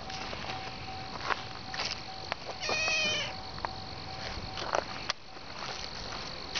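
A black domestic cat meows once, about three seconds in, a short call that wavers in pitch. A few light clicks come before and after it.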